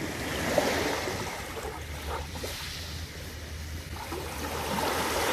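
Small waves washing onto a pebbly shore, swelling about half a second in and again near the end.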